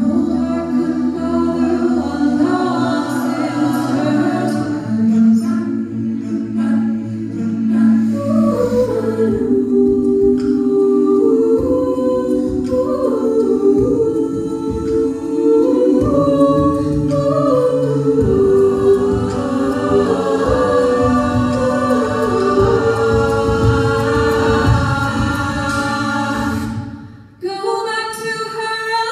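Collegiate a cappella group singing into microphones: a female lead over sustained backing harmonies and a bass line, with a rhythmic low pulse joining about a third of the way in. The sound drops out abruptly for a moment near the end, then the voices come back in.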